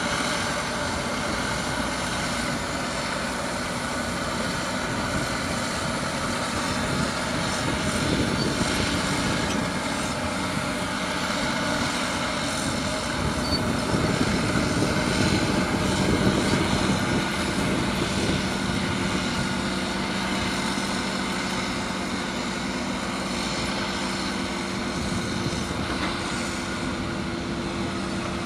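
Caterpillar D6R bulldozer's diesel engine running steadily under load while pushing dirt, its note settling into a steadier hum about halfway through.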